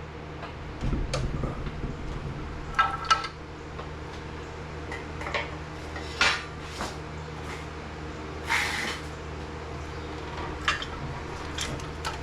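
Metal tools and parts clinking and clanking at irregular intervals, some strikes ringing briefly, with a dull thump about a second in. A steady low hum runs underneath.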